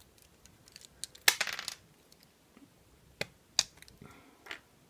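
Plastic Lego pieces clicking and clattering as they are pulled off a model and set down: a short clatter a little over a second in, then a few single sharp clicks.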